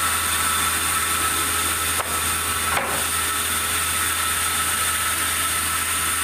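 Sawmill running steadily: a constant machine hum under a high whine and hiss, with a couple of brief knocks about two and three seconds in.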